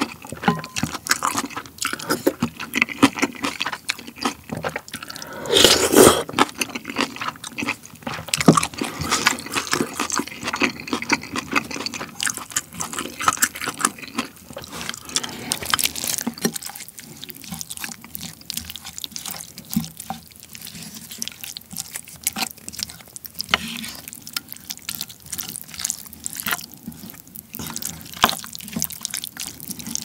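Close-miked eating sounds of pork-belly kimchi stew: wet chewing and slurping from a spoon, with spoon clinks on the bowl. Past the middle, rice is tipped into the stew and mixed in with wet stirring and scraping.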